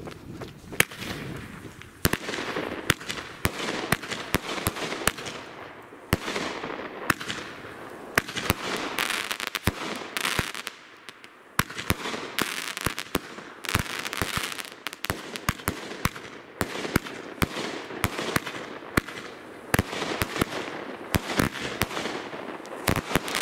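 Hofer 'Horus' consumer firework battery firing shot after shot, about one a second. Each shot is a sharp bang followed by a fizzing, crackling burst, with a couple of brief lulls between volleys.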